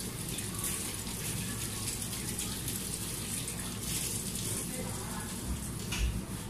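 Kitchen tap running steadily as hands are washed under it, with a couple of low bumps near the end.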